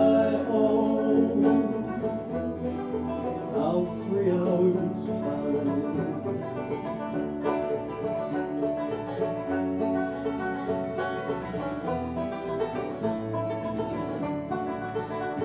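Bluegrass band playing an instrumental break between verses on banjo and acoustic guitars, with a steady bass pulse underneath.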